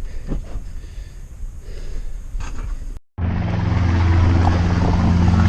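A few light knocks over a quiet background. About three seconds in, the sound cuts abruptly to a low-flying helicopter, whose rotor and engine make a loud, steady low drone.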